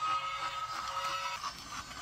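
Music with held notes playing over the steady whir of a toy train's small motor as the train runs on its plastic track; the music stops about one and a half seconds in.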